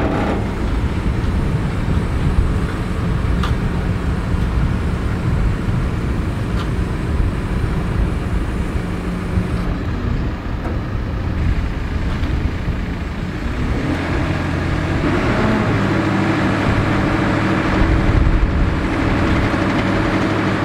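Diesel engine of a JCB telehandler running steadily while the machine holds a roof truss on its boom. About 14 seconds in the engine note steps up as it works harder.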